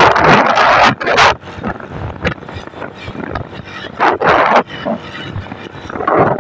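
Wind buffeting the microphone of a moving vehicle, coming in irregular loud gusts over a steady lower road-and-engine noise.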